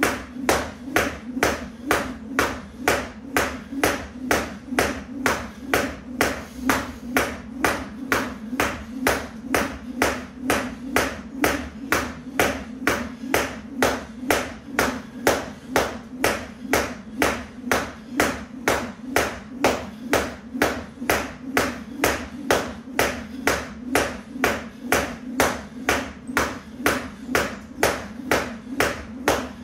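Jump rope slapping the floor mat on each turn, with the feet landing, in a steady, even rhythm without a break.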